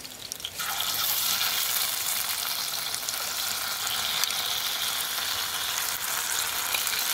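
Raw squid rings dropping into hot oil with golden garlic in a frying pan: a sizzle starts suddenly about half a second in and keeps going steadily as more rings are pushed in with a spoon.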